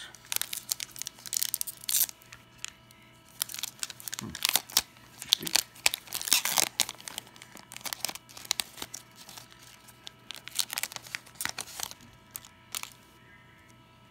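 Foil wrapper of a 1996 Upper Deck SP baseball card pack being torn open and crinkled by hand, in many irregular crackling bursts that thin out near the end.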